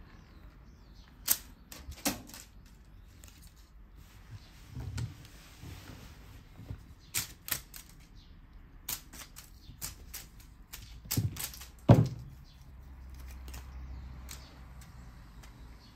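Scattered sharp clicks and knocks of a cat playing with a wand toy on a wooden floor, with a heavier thump about twelve seconds in.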